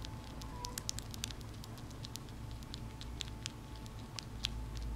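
Baby Syrian hamster chewing food crumbs: a rapid, irregular run of tiny sharp clicks, thickest in the first second or so.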